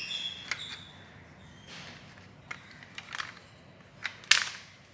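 Movable-alphabet cutout letters clicking and clacking as a hand sorts them in a wooden compartment box, with a sharper clack about four seconds in.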